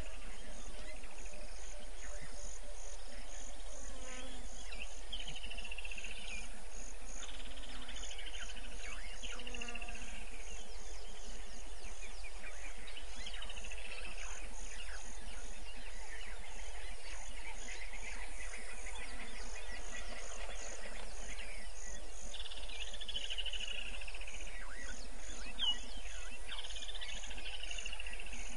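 Insects chirping in a steady, even high pulse, about three chirps a second, over a constant low hum. A short descending bird trill breaks in a few times.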